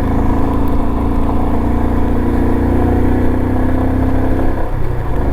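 Royal Enfield Himalayan's single-cylinder engine running on the move, its note rising slowly and then dropping about four and a half seconds in, over a low rumble.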